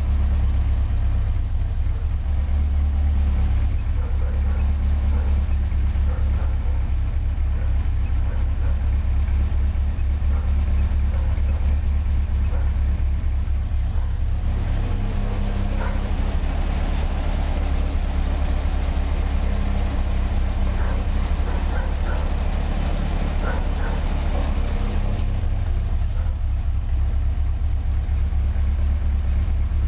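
Car engine idling steadily with a light tapping like drumsticks on a drum, which the owner places at the exhaust stroke. For about ten seconds in the middle the sound turns brighter and noisier.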